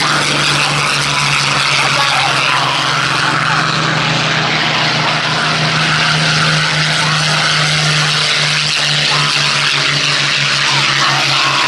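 Supermarine Spitfires taking off one after another, their V-12 piston engines at take-off power in a loud, steady drone that pulses slightly in the last few seconds.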